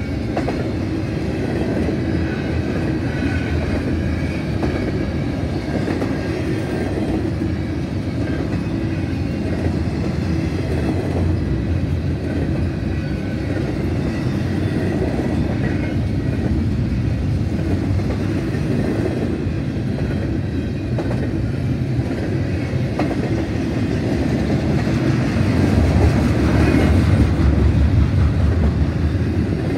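Canadian Pacific double-stack intermodal train's loaded well cars rolling past: a steady rumble of steel wheels on rail with clickety-clack over the rail joints, louder for a few seconds near the end.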